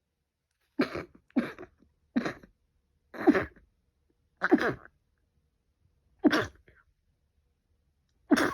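A person sneezing over and over in a fit, seven sharp sneezes in quick succession with uneven gaps between them, the sneezing of a pollen allergy.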